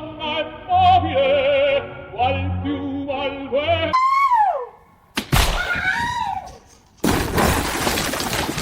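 Cut-together meme sound clips. First comes a singing voice with wide vibrato over a low pulsing beat. About four seconds in there is a downward sliding tone, then another wavering gliding sound, and a harsh rush of noise near the end, each change sudden.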